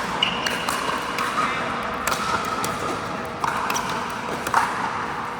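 Pickleball paddles hitting a hard plastic ball in a rally: sharp pops about a second apart, with a brief squeak near the start.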